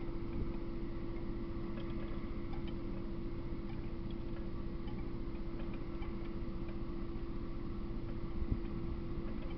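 Steady electronic hum and hiss from a trail camera's recorder, with faint scattered ticks and two soft knocks, one about half a second in and one near the end. No train passes.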